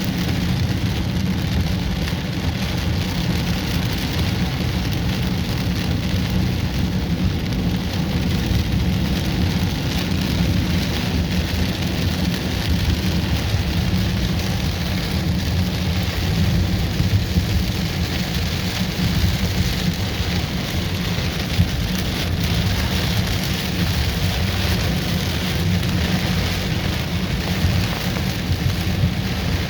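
Rain falling steadily: a dense, even hiss with a strong low rumble underneath, unbroken throughout.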